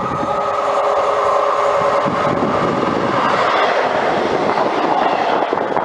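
Passenger train passing through a station platform at speed: a loud rush of wheel and rail noise with a steady whine over it that fades out about halfway through.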